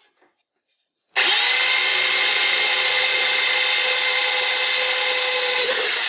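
Hand-held electric drill starting up about a second in and running steadily with a whine as the bit cuts a hole through a metal panel.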